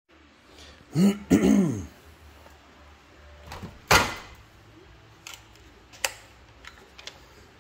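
A man makes a short throat-clearing sound, then a single sharp knock and a few light clicks.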